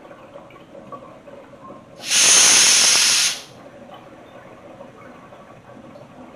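Corny keg's pressure relief valve pulled once, about two seconds in, venting gas in a loud hiss that lasts about a second and a half and then stops. This is the keg being burped to purge air from the headspace during forced carbonation with CO2.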